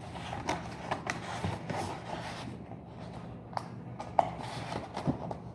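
Disposable takeout box being folded and assembled by hand: scattered light taps and clicks as the box is handled, a sharper snap about four seconds in, over a steady low hum.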